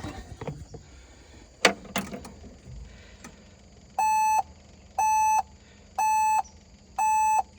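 LS MR232 HST tractor's dashboard warning beeper sounding a steady pulsed beep about once a second, starting about four seconds in, after two light clicks from the key switch. The beeping accompanies the flashing parking-brake warning on the dash while the engine won't start.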